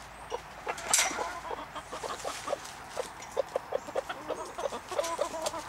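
Several chickens clucking in quick, short, repeated calls. There is a sharp click about a second in.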